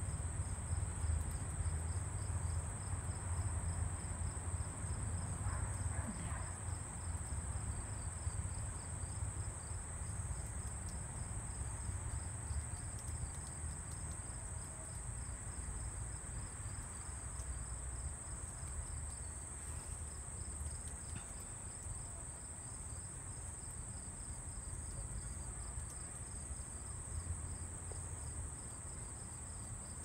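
Steady high-pitched drone of an insect chorus, with a low rumble underneath.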